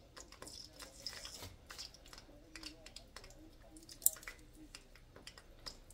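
Empanadas frying in shallow oil over a low flame: faint, irregular crackling and popping of the oil, with a sharp metallic click about four seconds in as kitchen tongs are handled.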